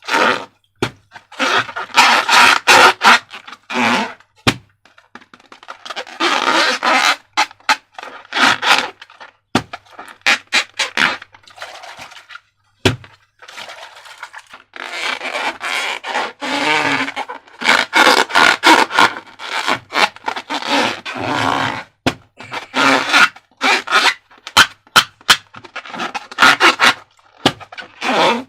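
Slime being squeezed and worked, with wet squelching, crackling and sharp pops from trapped air, in irregular bursts.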